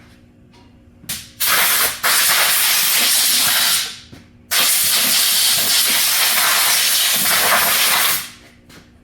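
Compressed-air blowgun blowing dirt out of a lawnmower engine. A brief puff comes about a second in, then three long, loud blasts of hissing air; the last runs about four seconds.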